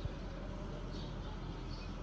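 Distant diesel tractor with a boom-arm flail mower running steadily, a low hum with a single low thump right at the start.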